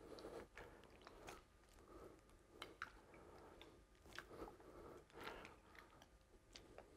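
Near silence with faint, scattered crackles and clicks.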